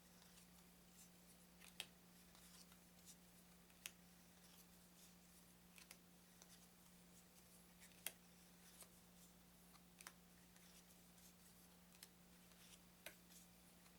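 Playing cards handled and laid down one at a time, making faint sharp clicks and snaps every second or two, over a steady low hum.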